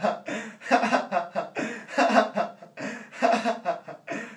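A young man laughing in repeated bursts.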